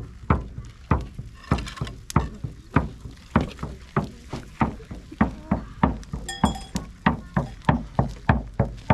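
Steady drumbeat, about two beats a second, with a single bright ringing chime about six seconds in.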